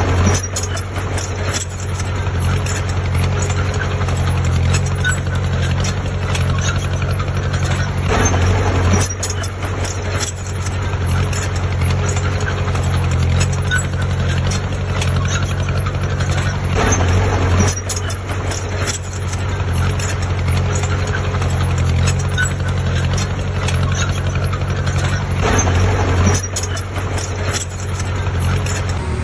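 Heavy diesel construction machinery running steadily, with a low engine drone and scattered knocks and clanks throughout.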